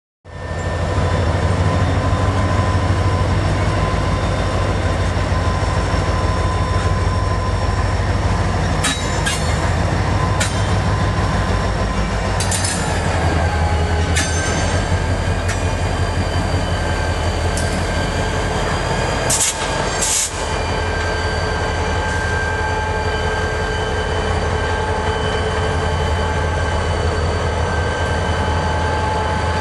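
Norfolk Southern freight train rolling past: a steady low rumble under a high, ringing wheel squeal, whose main tone drops slightly in pitch about twelve seconds in. Sharp clicks of wheels over rail joints come now and then, with the loudest pair near the end of the first twenty seconds.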